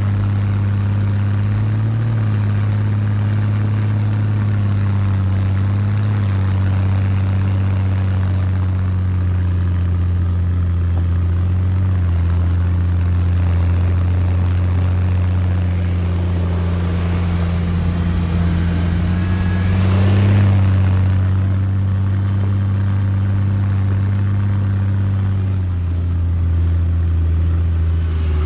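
A snowcat's diesel engine runs steadily, heard from aboard the machine as it drives over the snow. There is a brief swell about two-thirds of the way through, and the engine note drops in pitch near the end.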